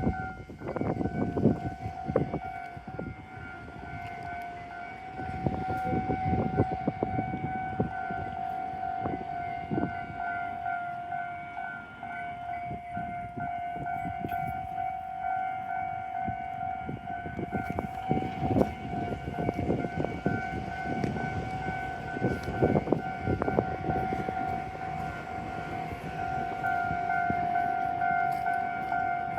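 Japanese railway level-crossing warning bell ringing without pause on one steady pitch, with low rumbles and knocks from passing rail traffic swelling and fading several times.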